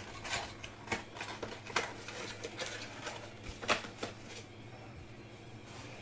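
Trading cards and foil pack wrappers being handled: scattered light clicks, taps and rustles, which thin out after about four seconds.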